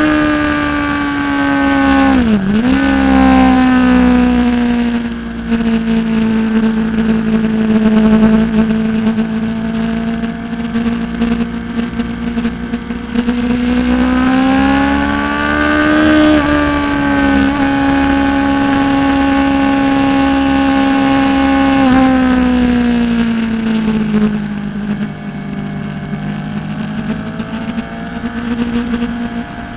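600cc supersport racing motorcycle engine at high revs, heard from a camera mounted on the bike. The pitch dips sharply and recovers about two seconds in, sags, climbs again around the middle, then drops down in steps near the end.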